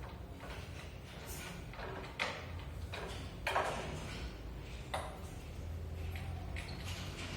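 A series of irregular knocks and clatters over a low steady hum, the sharpest about two, three and a half, and five seconds in.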